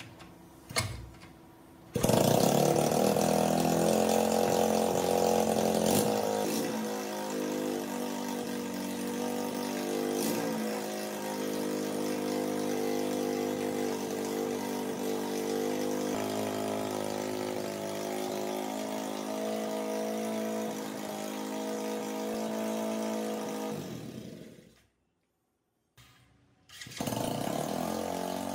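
Restored 1980 Honda Super Cub C50's 49cc single-cylinder four-stroke engine starting suddenly and running fast for a few seconds, then settling to a steady idle. It dies out about 24 seconds in and starts again a couple of seconds later.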